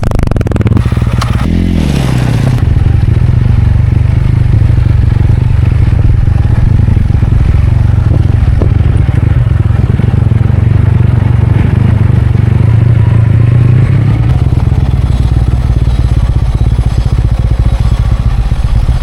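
Tractor engine running loud and steady, its pitch dropping briefly about a second and a half in before settling.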